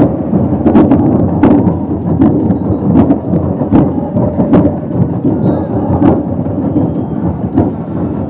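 Football stadium crowd chanting, with a steady beat struck about every three-quarters of a second.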